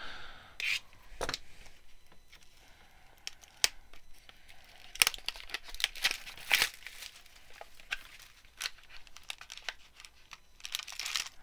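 Plastic wrapping on a small trading-card box being torn and crinkled off, with irregular sharp crackles and snaps as the box is handled.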